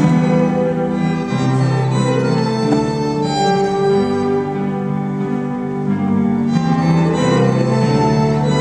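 Small ensemble of violins and clarinet playing a slow melody in sustained, bowed notes, with lower held notes sounding underneath.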